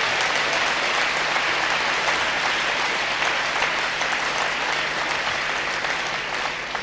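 Large audience applauding, a dense steady clatter of many hands clapping that dies away near the end.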